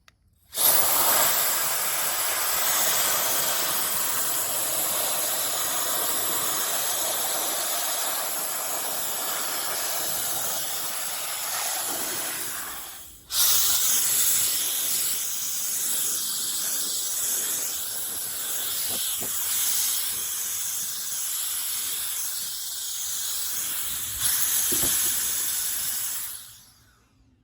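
Cordless electric air duster's high-speed turbo fan blowing: a loud, steady rush of air with a thin high whine. It starts about half a second in, cuts out briefly around the middle, starts again, and runs down near the end.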